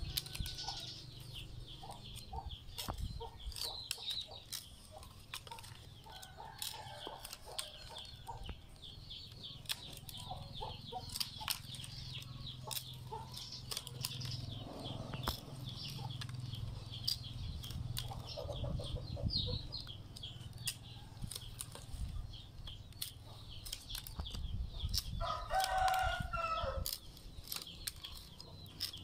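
Rattan strands clicking and rustling as thin stakes are pushed and worked into a woven rattan basket, with a chicken clucking briefly about 25 seconds in.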